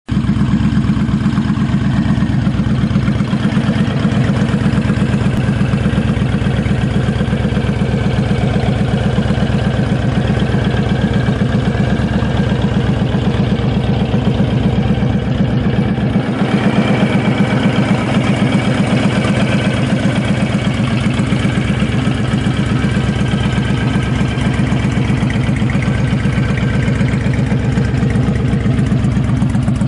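Honda VT1300CX Fury's 1312 cc V-twin idling steadily through an aftermarket Cobra exhaust, its pulses even and its speed unchanging.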